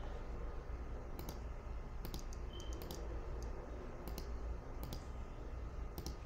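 Computer mouse button clicking, single clicks and quick pairs at irregular spacing, as grid squares are filled in one at a time in cross-stitch charting software. A low steady hum runs underneath.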